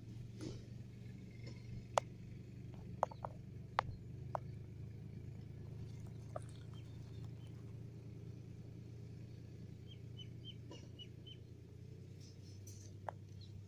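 Quiet outdoor background: a low steady hum with scattered sharp clicks, and a quick run of about six short high chirps about ten seconds in.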